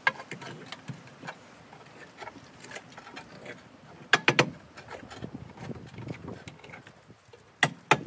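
Rustling and shuffling handling noise broken by sharp clicks or knocks: one at the start, a quick cluster of several about four seconds in, and two more near the end.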